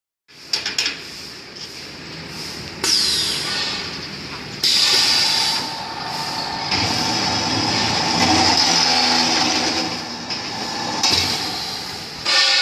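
Automatic pipe-cutting machine running, cutting metal pipe: a loud, harsh metallic screeching and clatter that rises and falls in stretches, with a short falling squeal about three seconds in.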